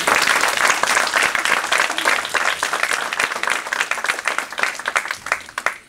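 Audience applauding: many hands clapping at once, starting suddenly, then thinning to scattered single claps near the end before stopping.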